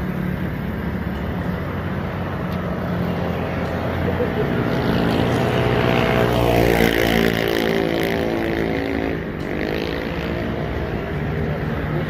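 Motor vehicle engine noise close by on the road, swelling to its loudest around the middle as a vehicle goes past, then easing off.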